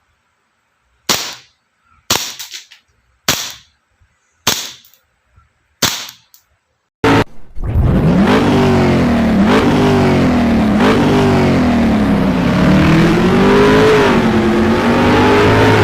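Five sharp shot-like cracks, about a second apart. Then, from about seven seconds in, a loud continuous sound whose pitch swoops up and down again and again.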